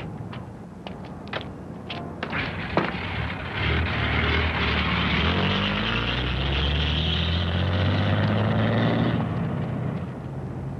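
A few sharp clicks and knocks, then a motor vehicle's engine running and revving, its pitch climbing steadily for several seconds before it drops away about nine seconds in.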